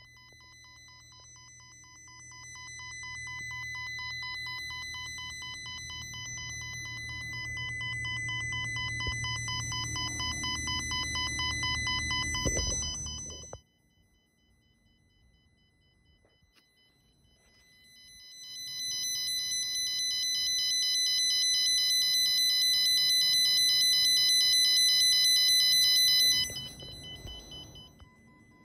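A JBL loudspeaker sounding a steady, high-pitched, rapidly pulsing test tone fed from a handheld tone generator clipped to its input terminals. The tone plays for about thirteen seconds, stops for about four, then comes back louder and cuts off near the end.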